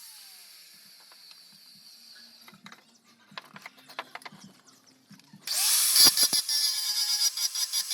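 An electric power tool's motor winds down at the start, a few light clicks follow, and then about five and a half seconds in it is switched on again: the motor whine rises and settles into a steady, loud high-pitched run with rapid ticking.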